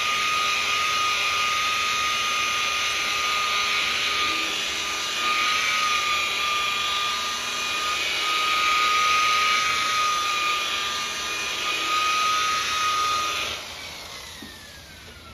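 DeWalt polisher with a foam buffing pad running steadily against a painted panel, with a constant high whine, while working compound into the clear coat. Near the end it is switched off and winds down, its pitch falling.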